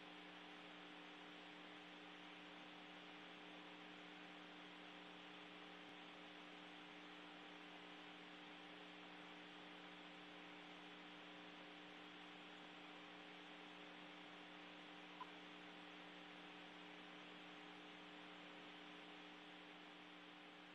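Near silence: a faint steady hum with hiss, and one tiny click about fifteen seconds in.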